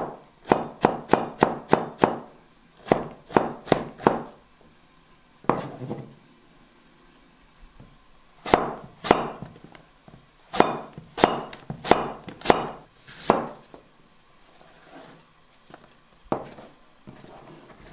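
Chef's knife cutting through red bell pepper and then apple onto a plastic cutting board: quick runs of sharp knocks, with a pause of a few seconds about a third of the way in.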